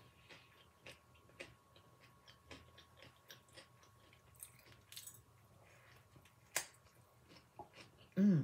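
Close-up chewing of a crunchy nori-wrapped veggie sushi hand roll, with many small crisp clicks and mouth smacks and one sharper click about two-thirds of the way in. Near the end comes a short hum of the voice.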